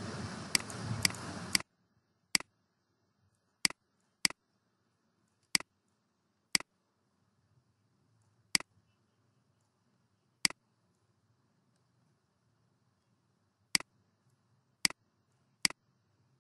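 Computer mouse button clicking: about a dozen sharp single clicks at irregular intervals. A low background hiss cuts off abruptly under two seconds in.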